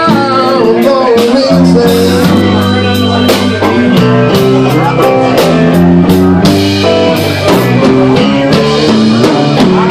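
Live blues band playing a slow blues: electric guitar over bass and drums, with held notes from the other instruments and a steady beat of drum hits.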